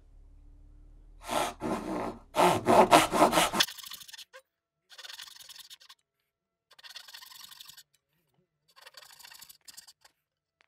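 Dovetail saw cutting into a wooden board: a quick run of back-and-forth strokes, loudest between about one and a half and three and a half seconds in, then three shorter, quieter bursts of about a second each.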